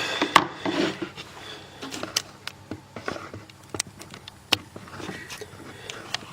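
Irregular clicks and light knocks of small tools and objects being handled and set down on a wooden workbench, with some rubbing and rustling between them.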